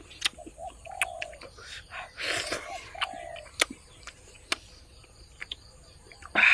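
Eating sounds, chewing and crunching chicken with sharp clicks and a noisy burst about two seconds in, over a string of short, low cooing calls.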